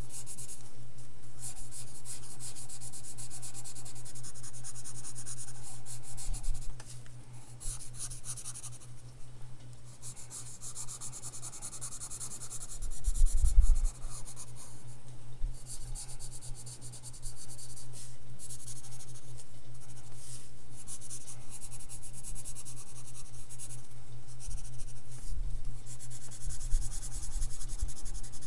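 Graphite pencil (Design Ebony) scratching and shading on sketchbook paper in repeated short strokes, over a steady low hum. A brief low bump about halfway through.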